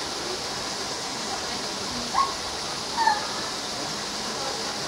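A steady rushing hiss of background noise, with two short high chirps about two and three seconds in.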